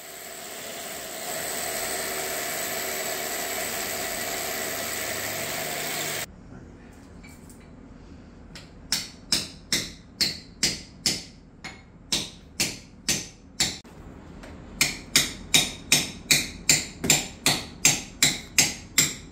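Hammer blows in an even rhythm, about two a second, then faster and louder, about three a second, near the end. Before them a steady noise cuts off suddenly about six seconds in.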